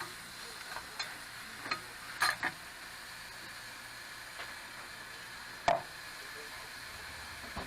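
Meat sizzling steadily on a grill, with a few sharp clinks and knocks; the loudest knock comes nearly six seconds in.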